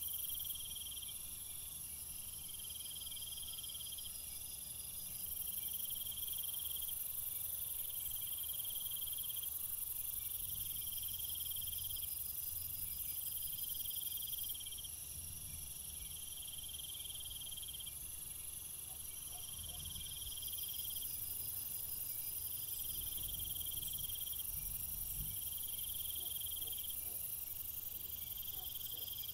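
Insects chirping steadily: a shrill phrase repeating about once every second or two over a constant high-pitched hiss, with a low rumble underneath.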